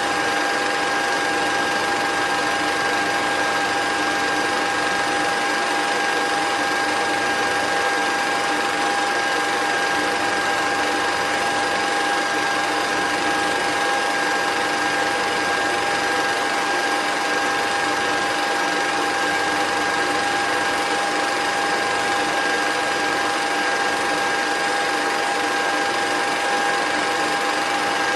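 Steady mechanical whirring with a constant whine that does not change.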